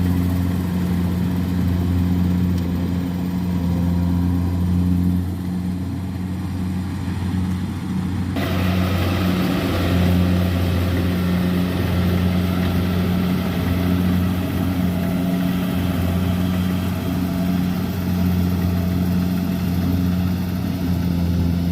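Kubota rice combine harvester's diesel engine running steadily with a low, even hum. About eight seconds in, a brighter, rushing machine noise suddenly joins it and continues.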